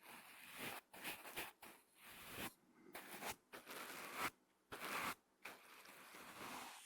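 Brush bristles stroked across a microphone, close up: a series of rough brushing strokes, each about half a second to a second long, with short breaks between them.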